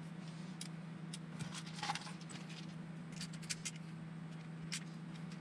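Scattered light clicks and taps of small screws and hardware being handled, over a steady low hum.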